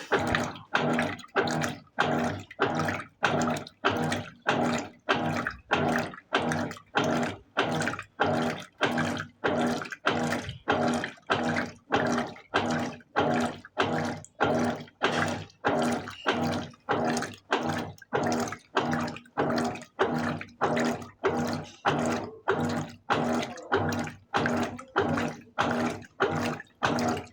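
Colormaq 14 kg LCA14A washing machine agitating a load of blankets in water. It goes in an even rhythm of about one and a half strokes a second, each stroke a motor hum with water sloshing.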